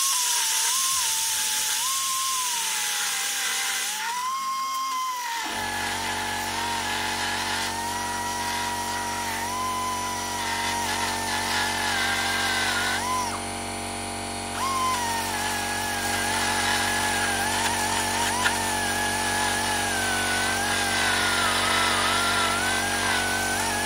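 Rotary tool on a flexible shaft grinding at an RC truck's motor mount, its high whine wavering and dipping in pitch as the bit bites. About five seconds in, a steady low hum made of many even tones comes in underneath and holds.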